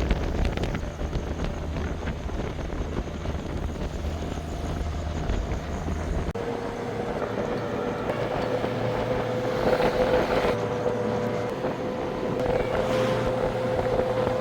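An engine running steadily. About six seconds in, the deep rumble drops away abruptly and a steady whine carries on.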